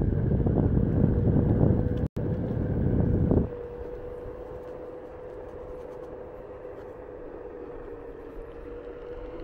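Onewheel GT electric skateboard rolling at speed: wind rumbling on the microphone, broken by a brief dropout just after two seconds in, then falling away sharply about three and a half seconds in to leave a steady soft whine from the board's hub motor over a quieter rush of tyre and air.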